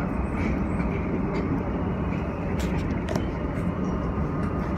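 New York City Subway R160A train running on elevated track, heard from inside the car: a steady rumble of wheels on rail with a train passing on the next track. A couple of sharp clicks about halfway through. The sound is weak and dulled by a LifeProof phone case.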